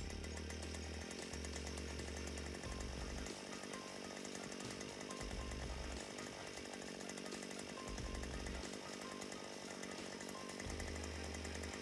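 The 43cc two-stroke engine of an Earthquake earth auger powerhead running steadily, with the buzzy note of a small two-stroke. A music track's low bass notes play underneath.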